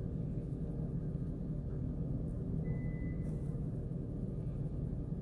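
Steady low rumble of background noise with no distinct strokes, and a faint, brief high tone a little past halfway.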